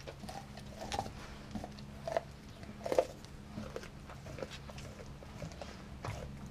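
Doberman gnawing a frozen raw chicken thigh on concrete: irregular crunches and clicks of teeth on frozen meat and bone, the loudest about three seconds in. The chicken is still frozen, which makes her gnaw rather than gulp it down.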